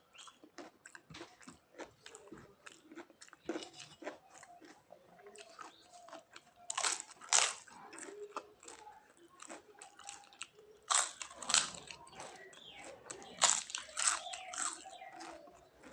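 Close-up mouth sounds of a person chewing crisp food, with wet chewing clicks throughout and louder crunchy bites about seven seconds in, around eleven seconds, and again near the end.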